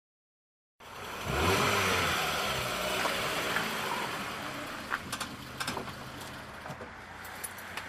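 A motor vehicle's engine revving as it goes by, its pitch rising and falling and then fading, with scattered sharp clicks from about halfway in.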